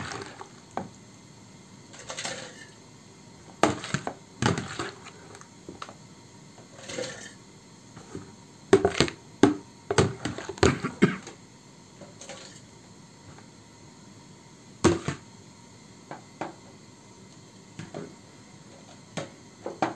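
Gloved hands scooping crushed red grapes out of a plastic basin and tipping them into a glass carboy through a plastic funnel: intermittent knocks and scrapes of the plastic bowl and wet handling of the grape mash, with a run of louder knocks a little before the middle.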